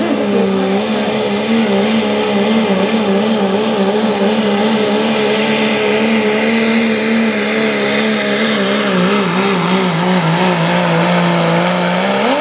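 Diesel Dodge Ram pickup engine at full throttle under load while dragging a pulling sled, running at steady high revs with a wavering pitch. The pitch sags a little late on, then jumps sharply as the engine revs up right at the end of the pull.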